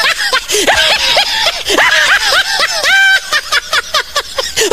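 High-pitched human laughter in quick, repeated bursts of giggling and cackling.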